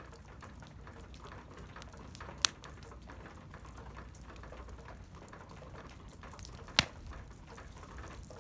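Meltwater from melting snow and ice dripping off a building onto aluminum sheets of a lean-to: a scattered pitter-patter of small taps, with two louder sharp ticks about two and a half seconds in and again about seven seconds in.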